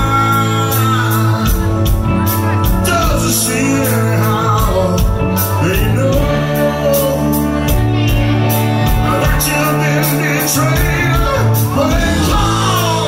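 Live rock band playing: steady drum beat, electric guitars and bass, with a singing voice over the band.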